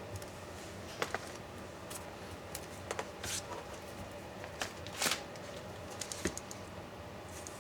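Irregular small clicks, taps and rustles of laptop parts being handled and pried during disassembly, the loudest a brief scraping rustle about five seconds in, over a low steady hum.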